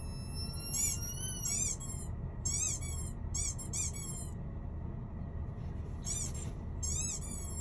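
High-pitched chirping squeaks, each a quick up-and-down sweep, coming in short bursts of two to four: a run of bursts in the first four seconds, then two more after a pause, near the end. These are noises played to the dogs to see how they react.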